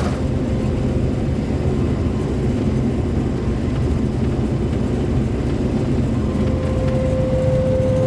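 New Holland TX36 combine harvester running while cutting wheat, heard from inside the cab as a steady, muffled low drone of engine and threshing machinery. A faint steady whine comes in near the end.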